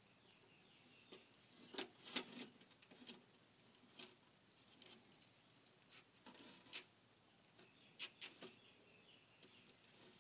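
Lace monitor's claws clicking and scratching as it clambers over a metal ledge and a bare hand: scattered short, faint clicks, in little clusters about 2, 4, 7 and 8 seconds in.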